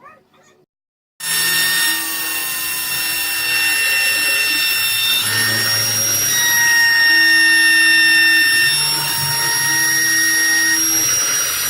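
A homemade CNC machine running: a steady high whine over a hiss, with a lower motor hum that comes and goes in stretches of a second or two as the axes move. It starts abruptly about a second in.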